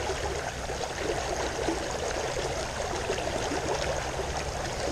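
River water flowing steadily, with a low rumble underneath.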